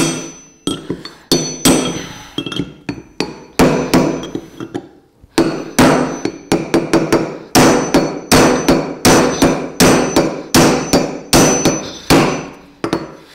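Steel hammer blows on a tie rod end remover fitted over a motorcycle steering stem, driving the tapered roller bearing off the shaft. The blows come about two a second, each ringing briefly, with a short pause about five seconds in.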